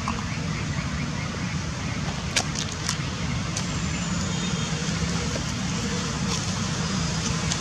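Steady low rumble of distant road traffic under an even hiss, with a few sharp clicks about two and a half to three seconds in.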